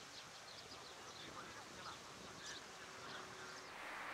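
Faint birds calling, many short chirps and calls scattered over quiet outdoor background noise. Near the end the calls fade into a steadier hiss.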